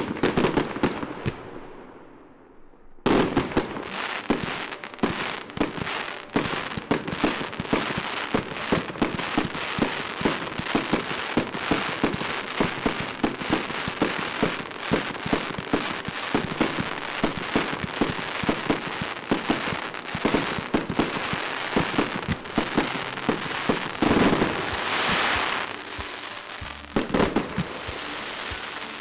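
Firecrackers going off: one bang fades away at the start, then about three seconds in a long, rapid crackle of pops begins, many per second, like a firecracker string, and runs on. There is a brief hissing burst about 24 seconds in.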